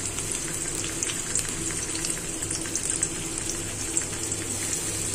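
Sliced onions, green chillies and garlic sizzling in hot oil in a karai, a steady fizz with many small crackles and pops, over a faint steady low hum.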